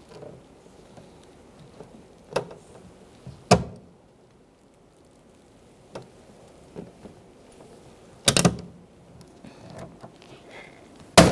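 Hand rivet gun setting a pop rivet to hold an interior door handle in a car door. There are a few separate sharp clicks and snaps, with the loudest ones near the end.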